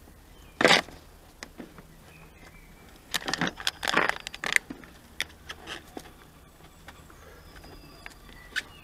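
Plastic clicks and knocks from hands working a Nissan Note's windscreen washer jet and the plastic scuttle panel around it, with a screwdriver: one sharp knock about a second in, a busy run of clicks and taps around the middle, then a few lighter ticks.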